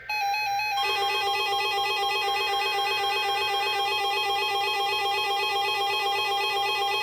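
Emergency Alert System header and attention signal. A short burst of data tones in the first second gives way to a loud, steady, trilling electronic alert tone, the tone that precedes a broadcast weather alert.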